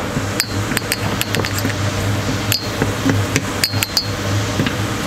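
A utensil knocking and scraping against a frying pan while stirring minced chicken in tomato sauce: irregular sharp clicks and clinks, with a steady low hum underneath.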